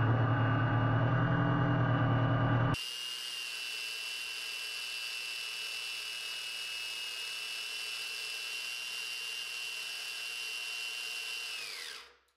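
775 DC motor driving a 3D-printed stacked planetary gearbox under load, lifting 25 kg. A loud, low, steady hum for about the first three seconds gives way abruptly to a quieter, steady high whine, which drops in pitch and dies away near the end as the motor stops.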